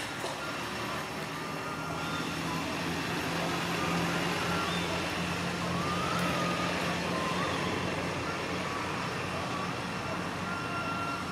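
Low, steady engine hum of a motor vehicle, growing a little louder about a second in and easing near the end, over outdoor background noise with a few faint high chirps.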